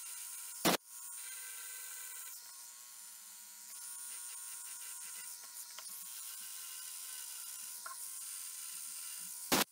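Dremel rotary tool with a diamond point bit running steadily, grinding into a CA-coated Alumilite resin blank with a thin high whine. Two sharp clicks cut in, one under a second in and one near the end.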